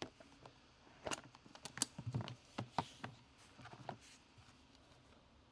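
Faint handling of trading cards and their packaging: a scatter of light clicks and rustles, mostly between about one and four seconds in.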